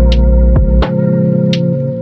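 Background music: soft ambient electronic music with sustained keyboard chords over a deep bass, and a light percussive tick about twice a second.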